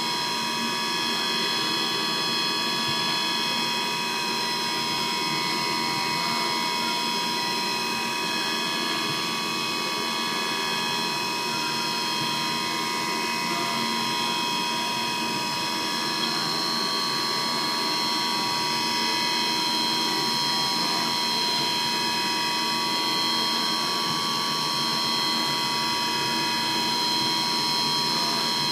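CNC milling machine machining a checking gauge: steady, even mechanical running with several held high-pitched tones over it.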